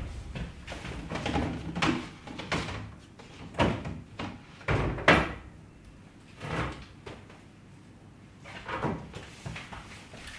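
Someone rummaging in a sliding-door wardrobe: irregular clunks, knocks and rustles as clothes and hangers are pulled from the shelves. The loudest knock comes about five seconds in.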